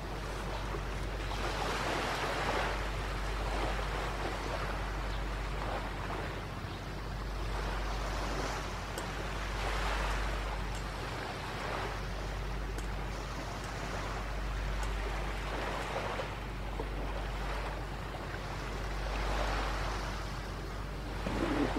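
Sea waves breaking and washing up the shore, swelling and fading every few seconds over a steady low rumble.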